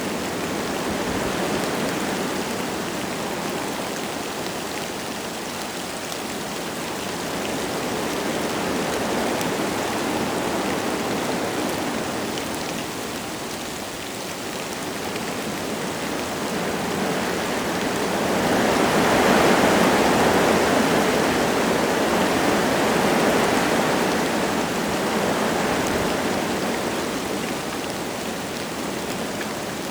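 Wind gusting through forest trees with light rain falling. The wind rises and falls in slow swells, with its strongest gust about two-thirds of the way through.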